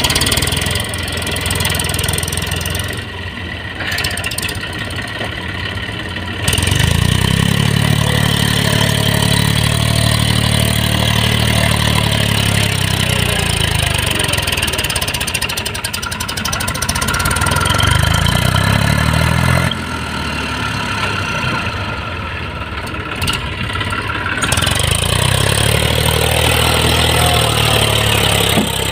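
Eicher 333 tractor's three-cylinder diesel engine labouring under a heavy load as it drags a fully loaded sand trolley up a slope. The engine note swells about six seconds in, drops back near twenty seconds, and swells again a few seconds before the end.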